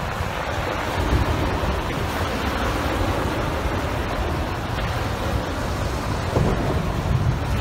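Heavy wind buffeting the microphone, a steady low rumble that gusts up and down, over small waves breaking on a sandy beach.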